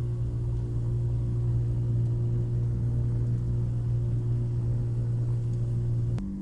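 Rotax 582 two-stroke engine of a Chinook Plus 2 ultralight running steadily at low power while the plane taxis on skis. It holds one even pitch, and a sharp click near the end cuts it off.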